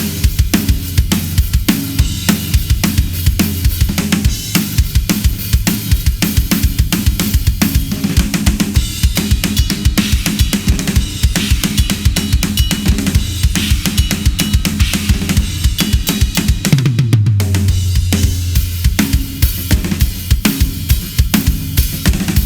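Drum kit played in a steady groove featuring a Ludwig Raw Brass 14x6.5 brass snare drum on its stock heads, tuned a little tighter, with bass drum and cymbals. A steady low bass tone runs underneath and slides down in pitch about two thirds of the way through.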